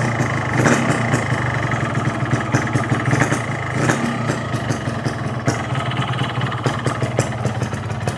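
Two-stroke motorcycle engine idling while still cold, running steadily with an uneven, crackly exhaust note.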